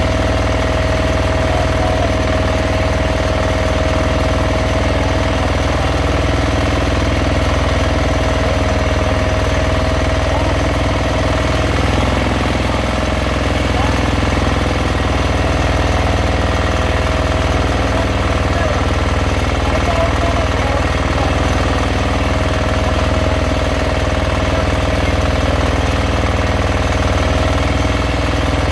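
Fishing boat's engine running steadily at an even speed, a constant drone with no change in pace.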